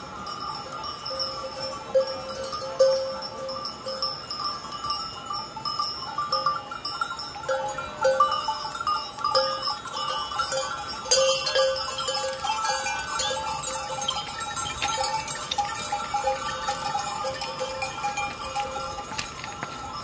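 Bells on a moving herd of goats clanking and ringing unevenly as the animals walk, with a run of overlapping clinks.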